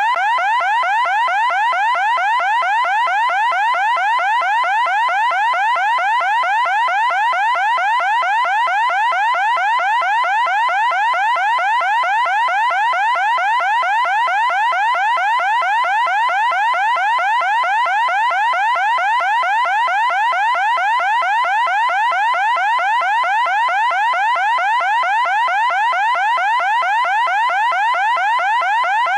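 Loud electronic siren sounding without a break: a high-pitched tone that sweeps rapidly upward, repeating several times a second at an even pace.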